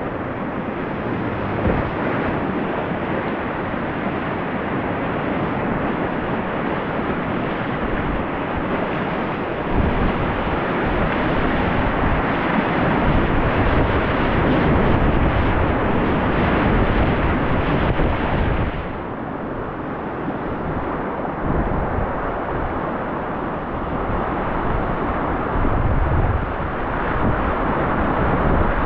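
Whitewater rapids rushing around a kayak, with water and wind buffeting the microphone. The rush is loudest through the middle, drops sharply about two-thirds of the way through, then builds again.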